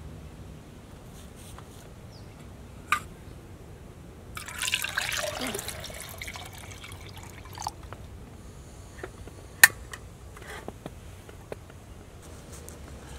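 Water pouring from an insulated bottle into a stainless steel camp pot for a couple of seconds, filling it. Light clicks follow, with one sharp, loud click about ten seconds in.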